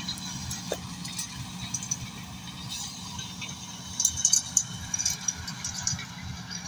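Tractor engine running steadily, a low even hum, with scattered light crackles about two thirds of the way through.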